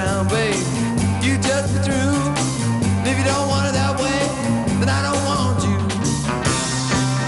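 A 1966 rock-and-roll record playing: a singer over a band, with a steady bass line and a regular drum beat.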